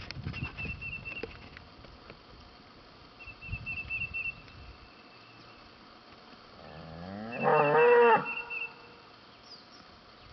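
One of the cattle moos once, about seven seconds in: a drawn-out call of about a second and a half that rises in pitch and then holds. A bird's short high trill repeats three times in the background.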